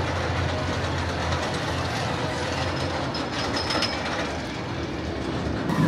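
Roller coaster train running along its track in a steady rumble, with a brief high wheel squeal about three seconds in.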